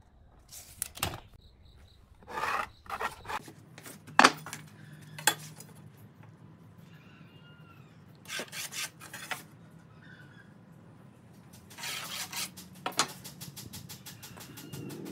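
A steel straightedge and wooden boards handled on a wooden workbench: scattered knocks and clicks with short scraping rubs as the rule is laid down and slid into place across the boards. The loudest knock comes a little after four seconds in.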